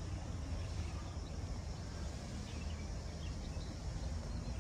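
Outdoor park ambience: a steady low rumble with a few faint bird chirps.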